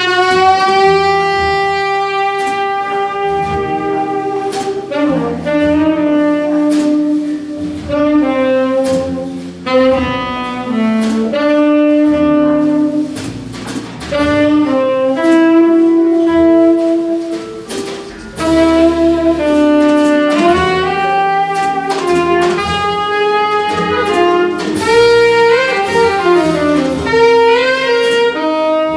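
Live jazz quintet: a tenor saxophone plays the melodic lead in phrased lines with short breaks, over guitar, double bass and drums with cymbal strokes.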